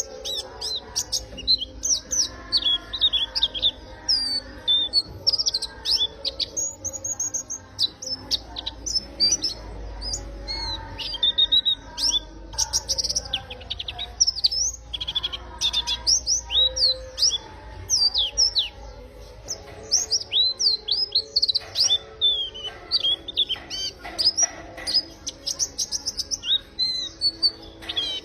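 A white-eye (pleci) singing: a rapid, almost unbroken stream of high chirps and quick downward-sweeping notes.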